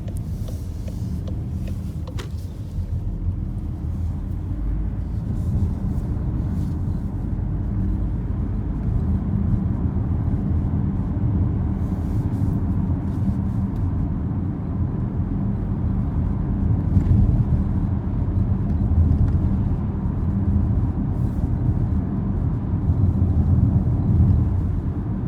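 Steady low road and engine rumble inside the cabin of a moving 2018 Volkswagen Tiguan, with scattered faint ticks and creaks from the dashboard trim: the cricket-like squeak the car's dashboard makes.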